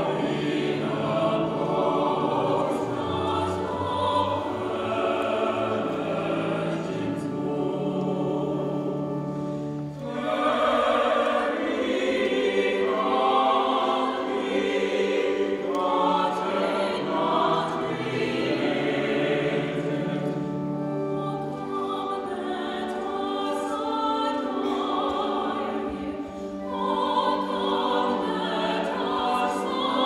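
A mixed choir singing with a small orchestra of strings and woodwinds, the music briefly easing between phrases about ten and twenty-six seconds in.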